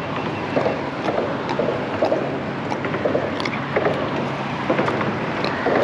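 Small fishing boat on the water: irregular slaps of water against the hull and wind on the microphone, over a low steady hum.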